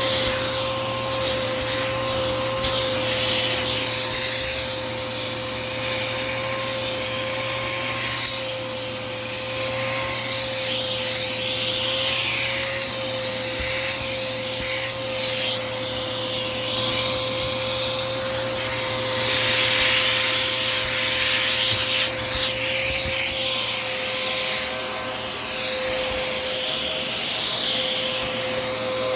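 Dirt Devil Power Max vacuum cleaner running, its motor giving a steady whine. The nozzle sucks and rubs over the couch upholstery, and the hiss of the suction rises and falls as it is moved about.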